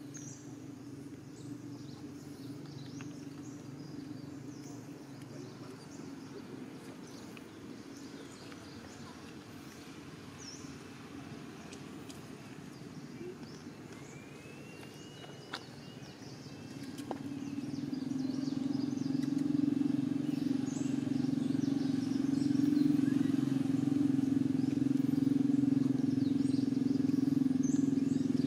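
A motor vehicle engine running with a steady low hum that grows louder past the middle and then holds. Faint outdoor ambience with small high chirps and one sharp click sits beneath it.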